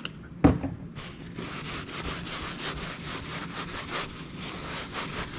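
A cloth is wiped back and forth over a cleaner-sprayed armrest, a steady scrubbing of quick repeated strokes. A single sharp thump comes about half a second in.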